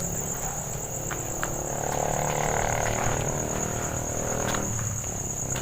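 Crickets chirring steadily on a high, even pitch. A lower, rough sound swells up about a second and a half in and fades again before the end.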